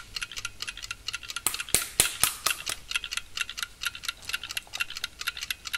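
Clock ticking fast, about six ticks a second, with a few louder ticks about two seconds in: a sped-up ticking effect that marks time passing while she stays awake.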